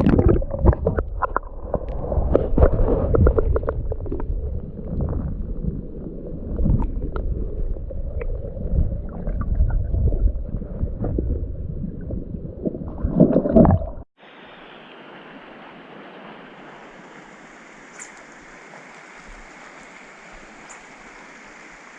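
Water sloshing and gurgling close to the microphone for about fourteen seconds, with uneven low knocks. It then cuts off suddenly to the steady, even rush of a stream.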